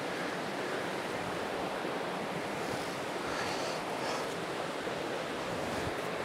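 Steady rush of a flowing creek, an even hiss with no breaks.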